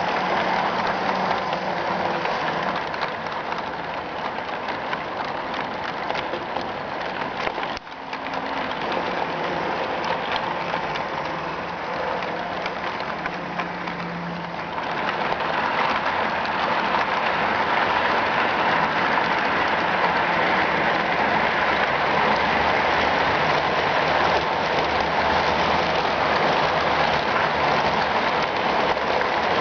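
HO-scale model trains running: a steady rolling rattle of metal wheels on track and the hum of small locomotive motors, growing louder about halfway through.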